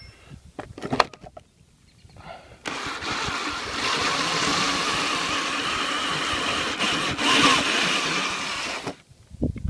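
Bosch drill with a hole saw running under load, cutting through the thick wood sheathing behind vinyl siding for about six seconds, then stopping abruptly. A couple of short knocks come before it starts.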